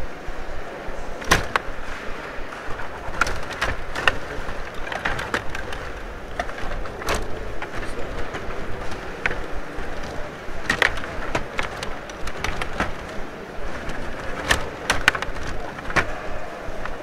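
Table hockey game in play: rods sliding and turning, and plastic players and puck clacking against each other and the rink boards. The clacks come at irregular moments over a steady rattling background.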